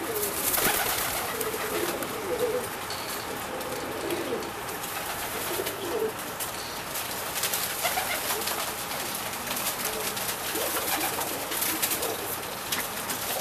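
A loft full of domestic tumbler pigeons cooing, with low wavering coos repeating and overlapping throughout. Scattered sharp clicks and rustles sound among the calls.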